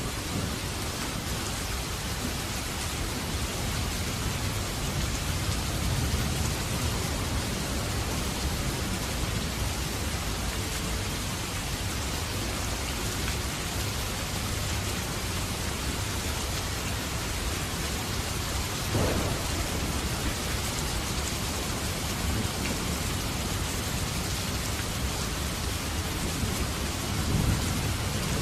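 Steady, heavy rain with low rolling thunder under it. The rumble swells twice, once early and again near the end, and there is one short knock about two-thirds of the way through.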